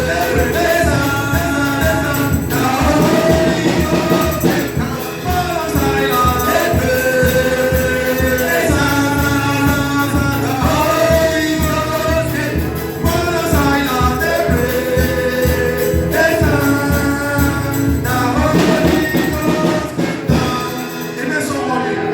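Gospel music: voices singing a melody over a steady, busy percussion beat.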